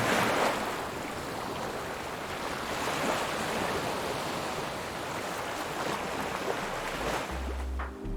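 Small sea waves washing onto a rocky shore, the surf swelling and easing about every three seconds. Near the end a low bass note of music comes in.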